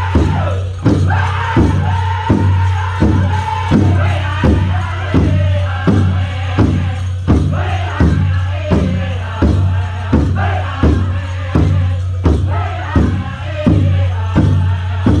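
Powwow drum group performing a Chicken Dance song: several men singing in high voices over a large drum struck in a steady, even beat, about three beats every two seconds.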